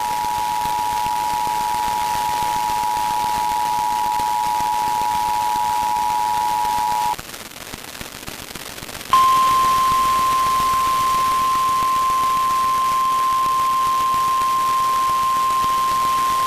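Emergency Alert System two-tone attention signal sounding steadily over radio static, cutting off about seven seconds in. After about two seconds of static alone, a single steady tone, the 1050 Hz NOAA Weather Radio warning alarm, starts and holds.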